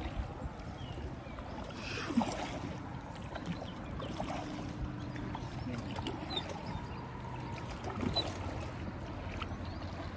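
River water swishing and lapping around an oar-rowed boat, with scattered light knocks from the oars.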